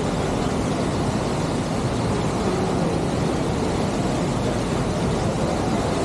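Steady, even rush of a waterfall with a strong flow, falling about 15 metres.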